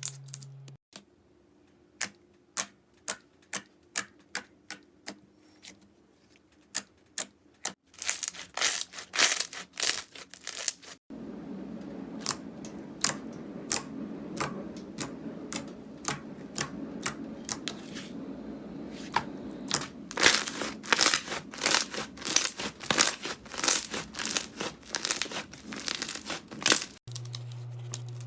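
Slime being pressed and stretched by hand, giving sharp clicking pops and crackles, with abrupt cuts between several short clips. Early on the pops come singly at about two a second; later they come in dense crackling runs over a soft squelchy rustle.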